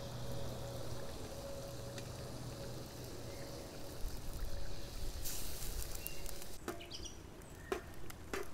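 Chicken and tomatoes sizzling and bubbling in hot oil in a cast iron wok. A metal spatula clicks and scrapes against the wok several times near the end.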